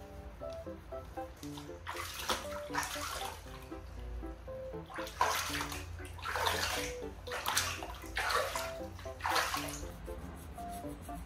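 Water splashing in a plastic basin as hands scoop it over a bathing chicken, in short bursts roughly every second from about two seconds in until near the end, over light background music.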